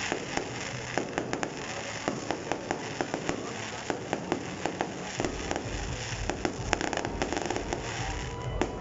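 Fireworks display: aerial shells bursting in a rapid string of sharp cracks and crackles, several a second.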